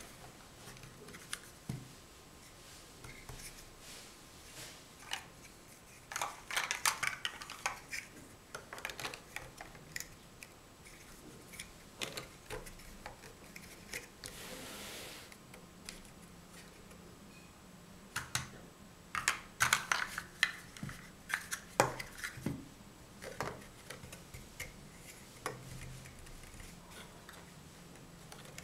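Large hollow plastic Mega Bloks First Builders blocks clicking and knocking together as they are handled and pressed onto the model, in scattered single clicks and two busy clusters of rapid clicks, one about six seconds in and a longer one about two-thirds of the way through.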